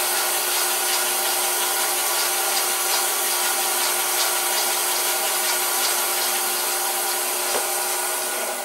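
Vintage Karger metal lathe running steadily while a carbide insert takes a cut on a steel backing plate, the chips hissing off the tool with faint ticking; the chips are coming off hot enough to show blue. The sound eases slightly near the end.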